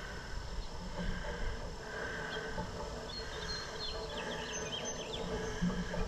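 Outdoor ambience: faint insects and a bird chirping a quick series of short notes about three and a half seconds in, over steady low background noise.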